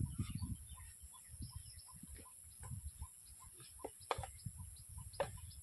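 Domestic fowl clucking: short notes repeated about three times a second, with a few sharp clicks near the end.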